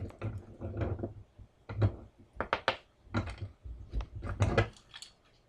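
A run of sharp clicks and knocks with dull thuds, the sound of small objects being handled and set down on a hard desk surface.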